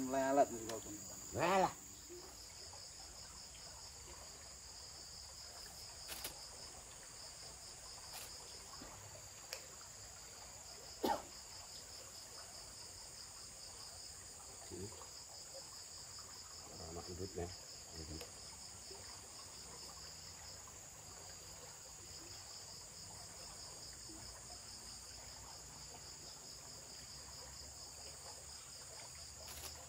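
Insects chirring in a steady, pulsing high drone. There is a short vocal sound near the start and a few faint clicks, the sharpest about eleven seconds in.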